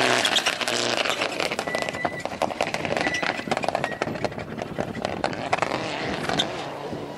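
Rally car at full throttle on a loose dirt stage. The engine is clear for about the first second as it passes, then fades as the car drives away. Throughout, gravel and stones thrown by the tyres make a dense spray of sharp ticks.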